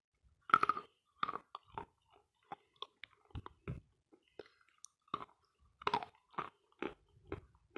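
Close-miked biting and chewing of dense, dry 'Sloyka' chalk: a loud crunch about half a second in, then a run of irregular crunching chews.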